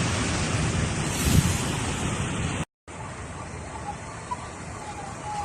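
Steady rushing noise of heavy rain and floodwater. It breaks off for a moment about two and a half seconds in and returns quieter.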